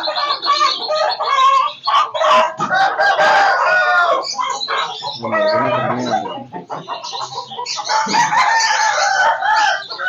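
Several caged Aseel roosters crowing over one another, their long calls overlapping, with clucking mixed in.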